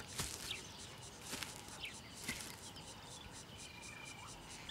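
Faint bush ambience: insects pulsing steadily at a high pitch, with a few short chirping bird calls.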